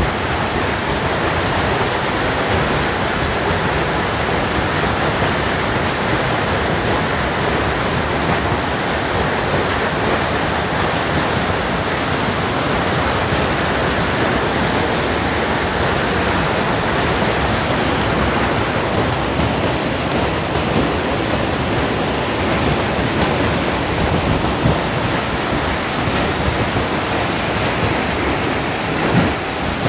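Hailstorm: hail and rain pelting down as a dense, steady noise of countless small impacts, with one louder knock just before the end.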